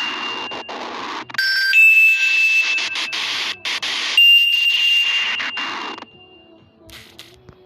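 Nokia N86 ringtone playing: a bell-like chime with a high ringing tone, struck again about every two and a half seconds, then fading out near the end.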